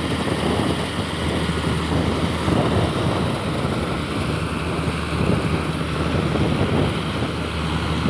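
Self-propelled combine harvester running steadily while harvesting wheat: a continuous engine and threshing drone with a low, even hum.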